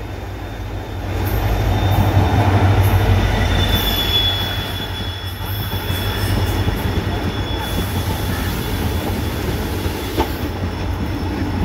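Locomotive-hauled passenger train running past along the platform: a deep steady rumble, loudest about two to three seconds in as the locomotive goes by, then the coaches rolling past with a thin high wheel squeal near four seconds and a single clank about ten seconds in.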